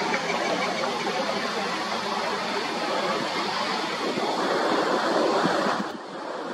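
Jet engine noise from an Airbus A320neo (A320-251N, CFM LEAP-1A engines) passing overhead in flight: a steady rushing sound that swells about four seconds in, then its hiss drops off suddenly near the end.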